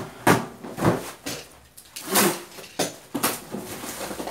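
A cardboard shipping box being handled and opened: a string of short knocks, scrapes and rustles as it is lifted, set down, and its plastic wrap and packing tape are pulled off.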